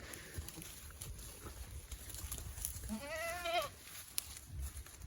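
A goat bleats once about three seconds in, a short quavering call.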